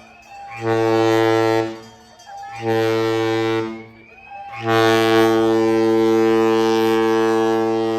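The Carnival Ecstasy's horn sounding: two blasts of about a second each, then a long steady blast starting about four and a half seconds in.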